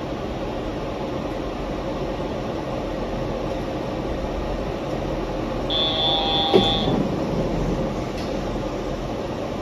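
Yurikamome rubber-tyred automated guideway train running at speed, a steady rumble and hiss with a faint constant hum. About six seconds in, a brief high-pitched tone lasts about a second, with a sharp click in the middle of it.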